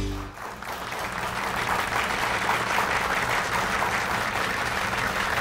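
Audience applause that swells just after theme music cuts off and then holds steady, over a faint low hum.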